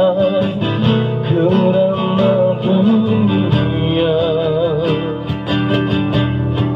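Live amplified acoustic guitar music, strummed and plucked, with a wavering melody line over it. Deeper bass notes grow stronger about halfway through.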